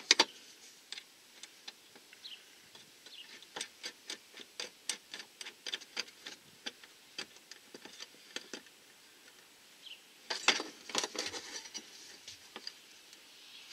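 Irregular small metallic clicks and ticks of bolts and washers being fitted by hand through a steel TV wall-mount plate against wood paneling, with a busy run of clicks about ten seconds in.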